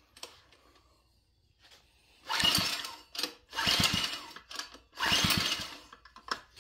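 Three pulls on the Phatmoto Rover's recoil pull-starter, each a short rasping whirr as the cord spins the small gas engine over, without the engine catching. The rider suspects it needs the choke.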